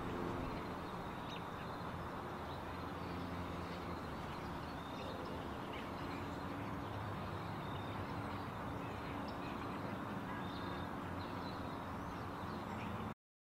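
Steady outdoor background noise with a faint low hum and scattered faint high chirps. It cuts off suddenly just before the end.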